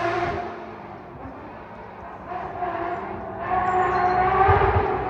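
Rally car engine revving hard on the stage. It eases off about a second in, then builds again from about two seconds and is loudest near the end, with a couple of short low thumps.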